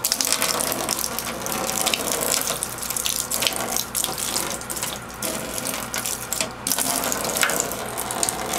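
Bathtub faucet running in a steady stream, with water splashing irregularly as a cat plays under the flow.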